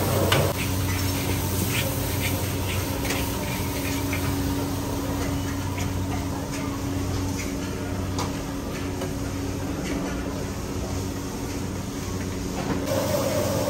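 Steady low mechanical hum of cooking equipment at a wok stall, with scattered light clicks and scrapes of a metal spatula and utensils.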